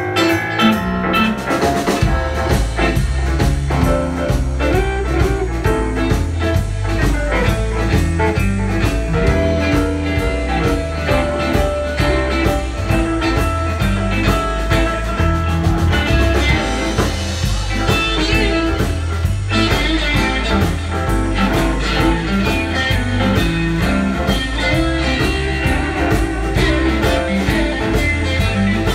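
Live blues band jamming in A minor: electric guitars and bass over a steady drum kit beat, with keyboard.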